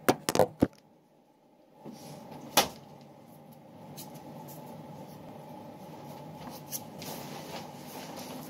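Phone being handled and set in place: several sharp knocks and taps in the first second, another loud knock a little after two seconds in. Between them a steady low background noise with a few light taps.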